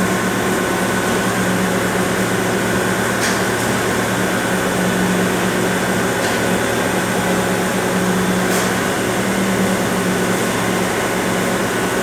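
Steady industrial hum and rushing noise of a brass-melting induction furnace plant and its fume extraction, with a strong low drone and a few faint clicks.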